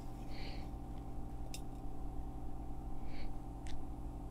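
Quiet room with a steady low hum, and a few faint light clicks and soft rubs of digital calipers held against the inside of a 93 mm cylinder bore while it is measured.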